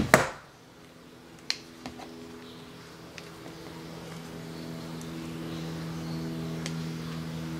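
Plastic clicks and taps of a vintage Mego action figure being handled and its leg bent: two sharp knocks right at the start, then a few faint scattered clicks. Under them a steady low hum grows louder in the second half.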